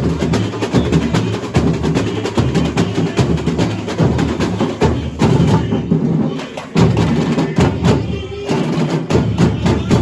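Samba school bateria playing samba: massed surdo bass drums, snare drums and small hand percussion in a dense, driving rhythm. The drumming thins out briefly a little past the middle and comes back in full.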